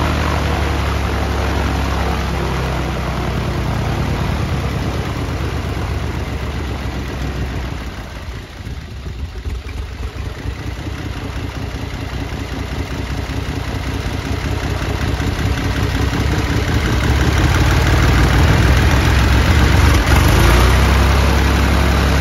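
Continental IO-520-BB fuel-injected flat-six aircraft engine, newly fitted to a Ryan Navion and uncowled, running on its first ground run with a steady low drone. It eases off about a third of the way in, then builds steadily louder toward the end.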